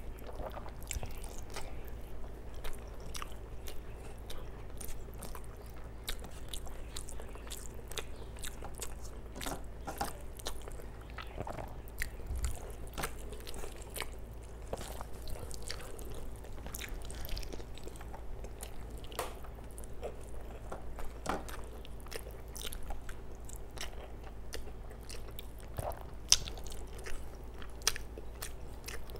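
Close-miked chewing, with many small wet clicks and lip smacks, of a person eating rice and curry by hand, mixed with fingers squishing rice on a steel plate. A steady low hum runs underneath.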